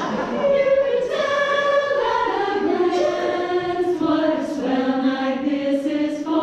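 A chorus singing long held notes in a slow melody that sinks gradually, then starts to rise again near the end.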